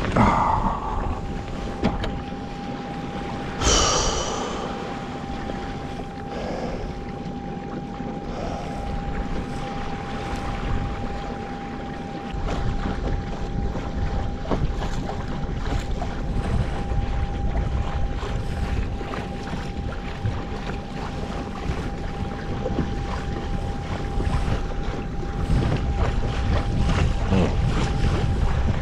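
Water sloshing and splashing around a kayak with wind rumbling on the microphone; a louder splash comes right at the start and another about four seconds in. A thin steady high tone runs underneath throughout.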